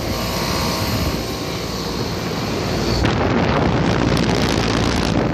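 Outdoor central air-conditioner condenser running, with the compressor's steady hum and a few held tones under the fan's whoosh. About three seconds in, a louder, even rush of air takes over, like the fan's discharge blowing across the microphone.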